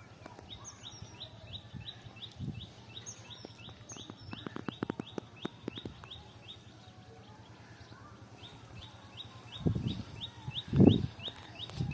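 A bird calling outdoors in a long series of short, high, falling chirps, about four a second, pausing for about two seconds in the middle and then resuming. Near the end come a few louder low thuds.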